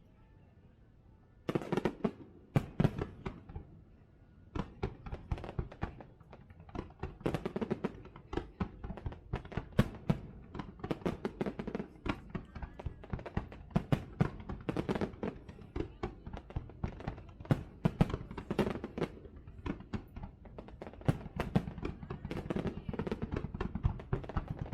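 Fireworks going off in rapid volleys: a dense string of sharp bangs and crackles that starts about a second and a half in and keeps going.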